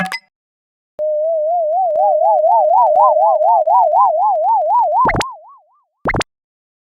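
Synthesized cartoon sound effect: a warbling electronic tone that wobbles about four times a second, the wobble growing wider, followed by two quick upward swoops about a second apart.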